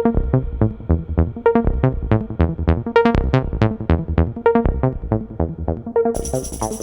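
Electronic dance music with a fast, steady beat and repeated synth notes; a bright high layer comes in near the end.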